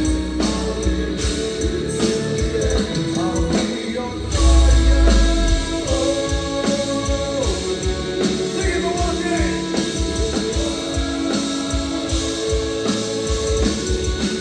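Live heavy metal band playing: distorted electric guitars holding melodic lines over bass and a drum kit. A heavy low boom swells in about four seconds in and lasts a little over a second.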